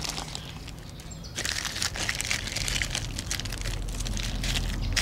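Clear plastic wrap crinkling and rustling as hands pull apart and handle a stack of wrapped target blocks, a dense run of crackles starting about a second and a half in.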